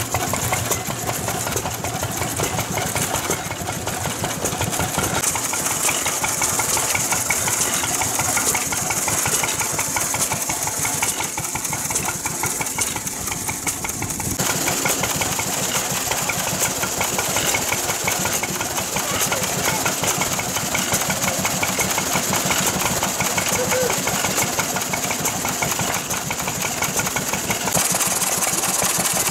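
Vintage stationary engines running with a rapid, steady firing beat, the sound changing abruptly several times as one running engine gives way to another.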